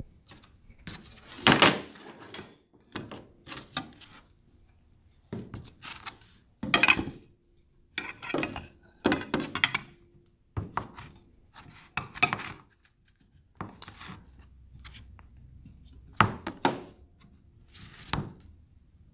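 Irregular knocks, clanks and rattles as a 3/4-inch lever-type tube bender and soft copper tube are handled and set against a plywood bench during bending. Some strikes leave a brief metallic ring.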